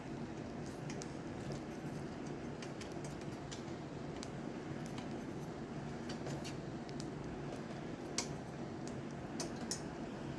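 Scattered light metallic clicks and ticks from handling bike rack parts and hardware, a few sharper ones near the end, over a steady low hum.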